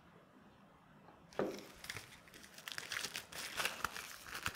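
Packaging wrap crinkling and rustling as a monitor sun hood is unwrapped by hand. It starts about a second and a half in, after a quiet moment.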